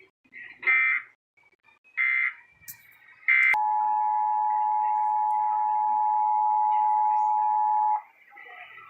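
Emergency Alert System tones: three short bursts of SAME data, the end-of-message code that closes the warning. Then the two-tone EAS attention signal holds steady for about four and a half seconds and cuts off abruptly.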